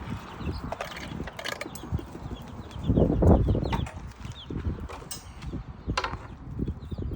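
Backyard chickens feeding: sharp, irregular taps of beaks pecking at food, with short clucks and chirps. A loud low rumble lasting under a second comes about three seconds in.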